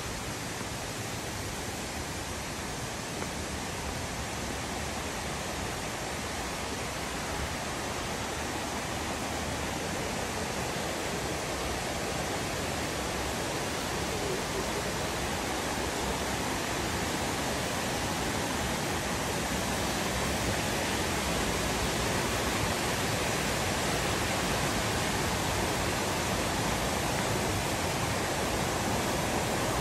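Steady rush of falling and flowing water from a waterfall and creek, an even hiss that grows slowly louder.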